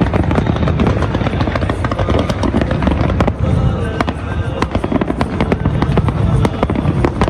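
Fireworks display: a dense, rapid run of bangs and crackles, one after another.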